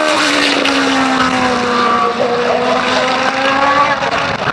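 Engine running steadily under load, its note dipping slowly in pitch through the middle and then rising again.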